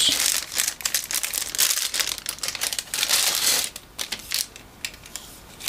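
Thin clear plastic sleeve crinkling and rustling as a receiver antenna is slid out of it, with many small sharp crackles; the rustling is busiest for the first three or so seconds and thins to scattered clicks near the end.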